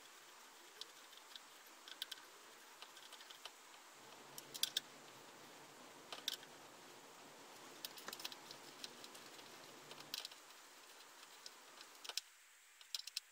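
Faint, irregular metallic clicks and taps of a hand tool working the bottom yoke pinch bolts on a motorcycle's front forks, with small clusters of clicks about a third of the way in and again past the middle.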